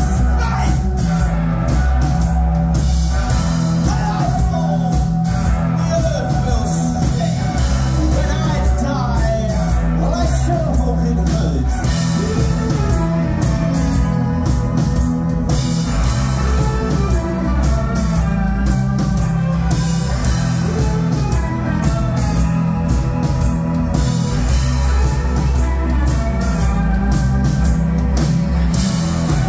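Loud live rock band: a male singer singing over electric guitar, bass and drums.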